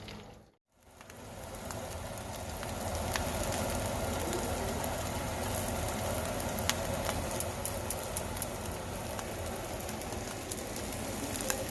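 Floured morel mushrooms frying in butter in a pan: a steady sizzle with scattered sharp crackles and pops. It starts about a second in, after a brief silence.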